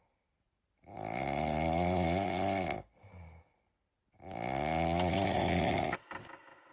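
Two long, drawn-out, wavering voice-like calls, each about two seconds, separated by a short silence: a cat-meme sound effect.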